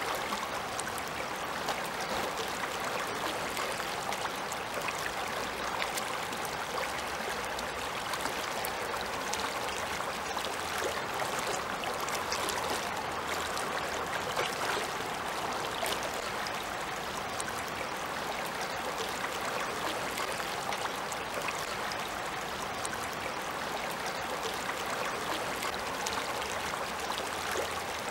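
Shallow river water running over stones and pebbles: a steady, even babbling rush with fine splashes.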